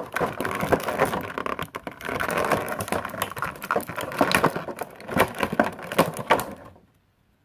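Plastic toy packaging crinkling and crackling with many quick clicks as it is handled, stopping abruptly near the end.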